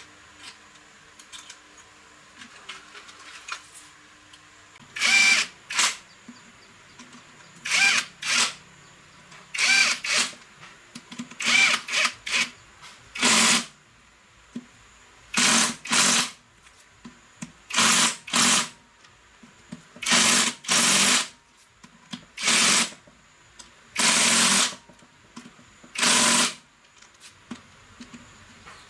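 A handheld power tool's motor run in short trigger bursts, often two in quick succession, about eighteen times from roughly five seconds in. Light clicks and clinks of handling come before the first burst.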